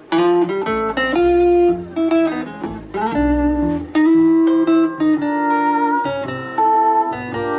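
Country band starting a song with an instrumental intro: guitars, with steel guitar among them, play sustained notes over a walking upright bass. The music comes in abruptly.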